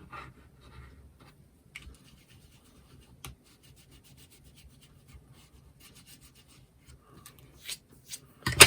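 Fingers rubbing and pressing cardstock down onto a card, a soft scratchy rustle of paper, with a sharp tap near the end.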